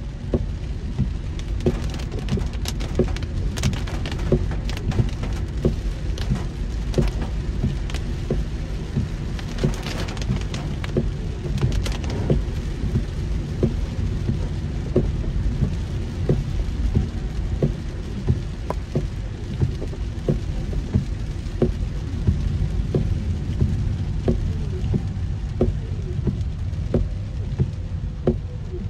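Heavy rain on a moving car: sharp drops tick irregularly over a steady low rumble and a constant hiss of rain.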